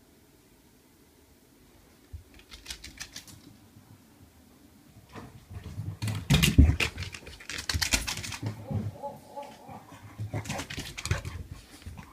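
A French bulldog's claws clicking and pattering fast on a wooden floor as it runs. A light run of clicks begins about two seconds in, and from about five seconds in they become heavier and louder, mixed with thumps of its paws.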